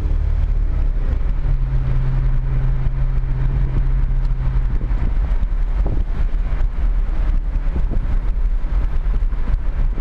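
Cabin noise of a Lexus sedan driving along a road: engine and tyre rumble with wind noise. A steady engine hum holds from about a second and a half in until about five seconds in.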